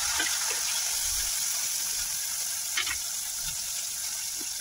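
Freshly added chopped tomatoes sizzling steadily in hot oil with onions in a kadai. A metal ladle stirs them, scraping and tapping against the pan a few times.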